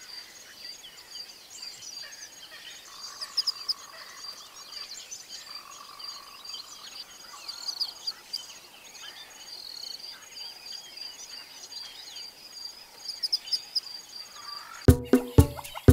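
Daytime bushveld ambience: scattered bird chirps and calls over a steady high-pitched drone. Loud music with a strong beat cuts in about a second before the end.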